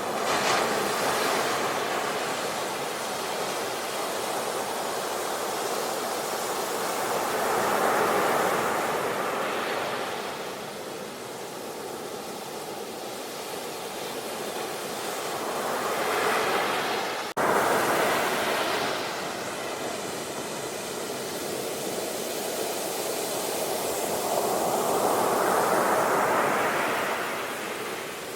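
Sea surf washing onto the shore, swelling and falling back in slow surges about every eight seconds. A sudden jump in the sound about two-thirds of the way through.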